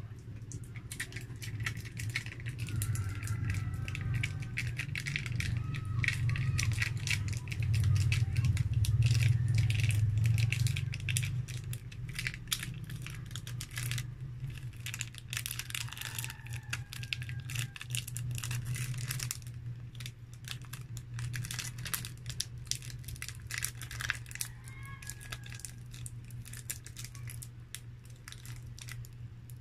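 Thin plastic crinkling and clicking as the film lid of a small plastic gravy cup is peeled back by hand. A steady low hum runs underneath, loudest about a third of the way in.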